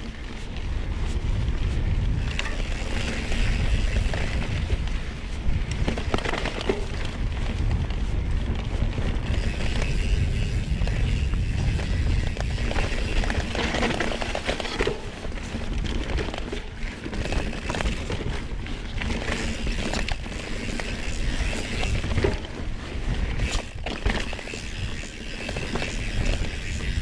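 Mountain bike rolling along a dirt trail: tyre noise with frequent rattles and knocks from the bike, and heavy wind rumble on the camera's microphone.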